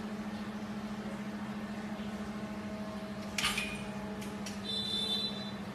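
A steady low hum, with a sharp click about three and a half seconds in and a brief high-pitched squeak near five seconds.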